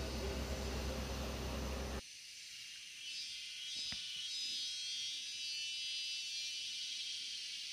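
Insects buzzing in the trees, a steady high whirring chorus. A low rumble of noise on the microphone cuts off suddenly about two seconds in, and there is a single faint click near four seconds.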